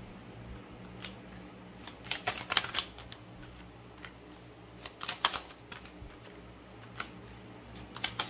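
Oracle cards being handled and shuffled: clusters of quick, light clicks and flicks about two, five and eight seconds in, with single clicks between.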